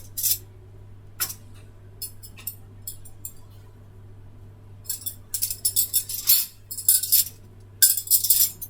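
Small clicks and clinks of things being handled: a few scattered ones at first, then quick clusters of them over the last few seconds.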